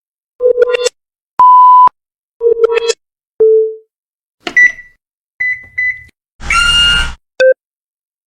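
A string of separate electronic button beeps with short silent gaps between them. They include quick chirpy clusters of bleeps, a plain steady one-pitch tone, higher double beeps, a harsher buzz near the end, and one last short blip.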